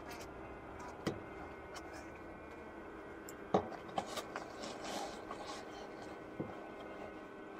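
Steady low hum of honeybees in a hive, with a few sharp clicks and taps, the loudest about three and a half seconds in.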